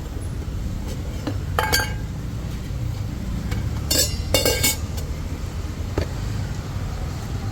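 Metal utensils clinking at a street food stall, a few short sharp clinks around two, four and six seconds in, over a steady rumble of road traffic.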